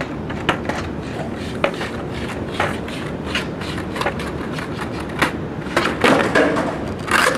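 Skateboard wheels rolling on concrete pavement: a steady rumble with sharp clacks about once a second as the wheels cross sidewalk seams, and louder clattering near the end.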